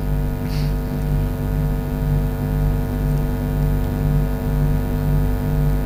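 Steady electrical mains hum from a mosque's microphone and loudspeaker system, a stack of steady tones with a low throb pulsing about every two-thirds of a second. A brief soft hiss about half a second in.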